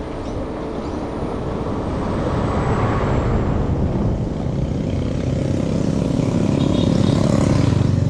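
A truck passing close by on the road, its engine and tyre noise swelling to a peak about three seconds in, then the low hum of motorcycle engines approaching and growing louder toward the end.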